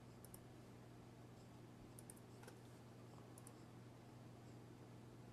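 Faint computer mouse clicks, several in quick pairs, as menus are opened and a window selected, over a steady low electrical hum.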